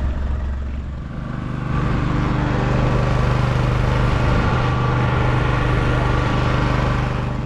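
A vehicle's engine running steadily, growing louder about two seconds in and then holding an even hum.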